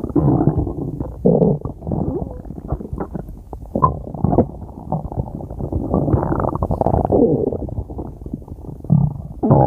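Human stomach growling and gurgling in an irregular string of rumbles, with a short squeak about four seconds in and a louder gurgle near the end.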